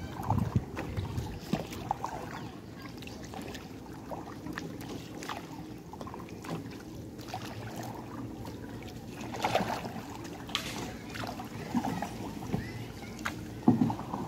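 A long pole plunged repeatedly into the water beside a small boat, splashing and churning it, with irregular louder splashes, several of them in the second half.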